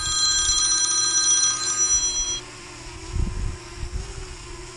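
Smartphone ringtone ringing, a chord of steady electronic tones that cuts off about two and a half seconds in. A faint steady hum stays underneath, with a short low rumble about three seconds in.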